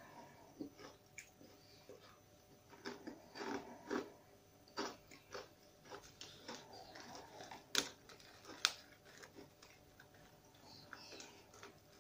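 Someone biting and chewing thick, very crunchy spiced pitta chips: an irregular run of crisp crunches, with two sharper cracks close together about eight seconds in.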